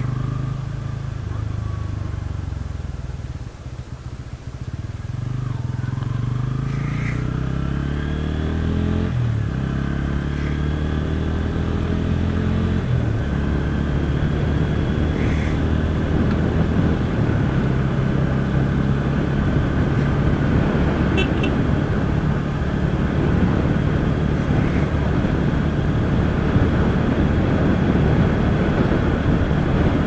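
Bajaj Pulsar N160's single-cylinder engine under way. It eases off a few seconds in, then climbs in pitch through two gear changes, about 9 and 13 seconds in, and runs on at a steady throttle. Wind rush grows louder as speed builds.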